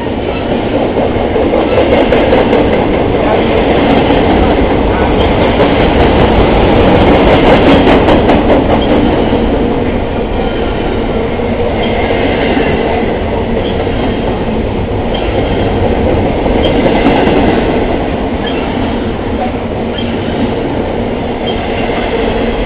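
Double-stack container train of loaded well cars rolling past at close range: a steady, loud rumble and clatter of steel wheels on the rails, with light regular clicks in the second half.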